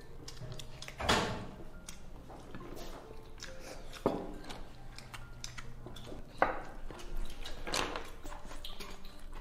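Tableware at a meal: a few scattered knocks and clinks of a spoon against stainless steel bowls on a wooden table, with faint room noise and brief snatches of voices in between.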